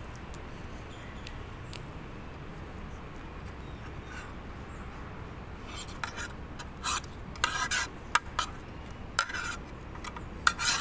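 Metal spoon and fork scraping and clinking against a plate: a run of short, sharp scrapes starting about halfway through, over steady low background noise.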